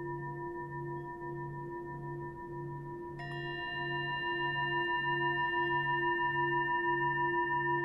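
Ambient background music: sustained bell-like tones over a low note pulsing about one and a half times a second, with a new chord of ringing tones struck about three seconds in.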